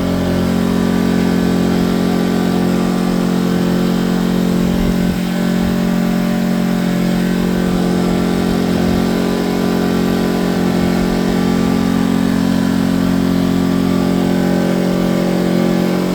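A-iPower 1800 portable generator's small gasoline engine running steadily at a constant speed, powering a refrigerator and other household basics.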